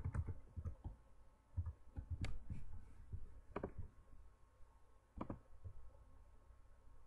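Scattered clicks of a computer keyboard and mouse: a few last keystrokes at first, then single mouse clicks a second or two apart.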